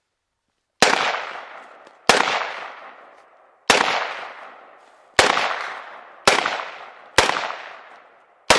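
AR-15 rifle firing 5.56 rounds in semi-automatic, seven single shots about one to one and a half seconds apart, each with a long echo dying away behind it.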